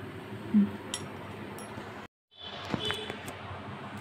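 Steady hiss of a gas stove burner on medium under a covered kadhai, with a few light metallic clinks of steel cookware. The sound cuts out briefly about halfway.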